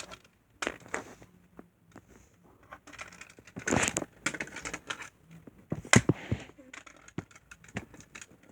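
Hard plastic Bakugan toy clicking and knocking against a smooth floor as it is rolled and handled, with a few sharp taps, the loudest about four and six seconds in, and quieter fumbling between.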